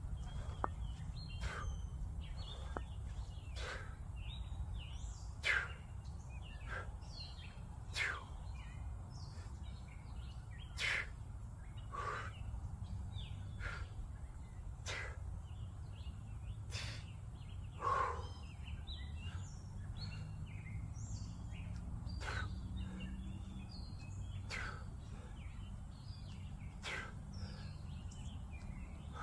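Songbirds chirping over a steady low outdoor rumble, with short sharp sounds every one to three seconds.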